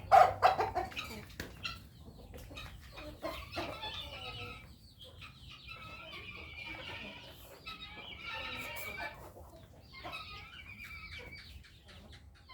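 Chickens clucking and calling, loudest in a burst right at the start, then in short bouts of higher calls.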